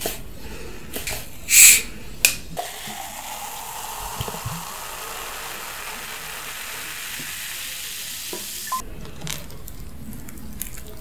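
A plastic bottle of sparkling water is twisted open with a short, loud hiss of escaping gas, followed by a click from the cap. The water is then poured into a glass and fizzes steadily for about six seconds, until the pour stops abruptly.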